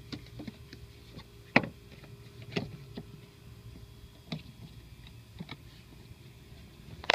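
Scattered clicks and knocks, the sharpest about a second and a half in, as a rubber hood weatherstrip is pressed back by hand onto the edge of the plastic cowl panel.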